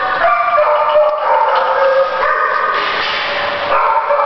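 Several dogs in boarding kennels barking at once, a continuous din of overlapping barks and drawn-out higher-pitched cries.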